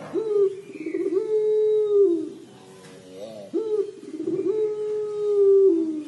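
Puter pelung, a long-voiced variety of ringneck dove, giving its drawn-out 'crying' coo: two long, steady calls of about two seconds each, the second sliding down in pitch at its end.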